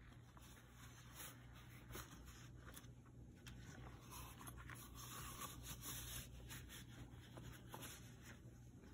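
Faint rubbing and scraping of rubber kitchen gloves being pulled on and handled, with a few soft clicks, over a low steady hum.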